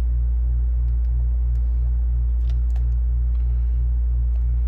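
A steady low electrical hum with a regular throb of about three beats a second, and a few faint light clicks over it.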